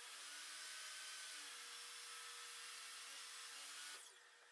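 DeWalt DWE7491RS 10-inch table saw running and ripping a strip of poplar, a steady whine whose pitch dips slightly about a second and a half in. It cuts off abruptly about four seconds in.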